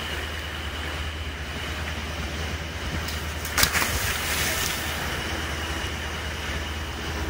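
Fishing trawler's engine running steadily under rushing water along the hull. About halfway through comes one sudden loud splash as the released sixgill shark drops into the sea.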